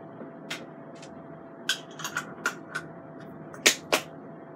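A series of light, sharp clicks and taps from things being handled at a kitchen counter, about ten of them and irregularly spaced. The loudest two come close together about three and a half seconds in, over a faint steady hum.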